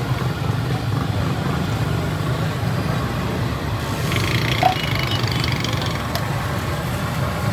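Steady low mechanical rumble, with light taps and clinks of buns and utensils being handled on a steel griddle.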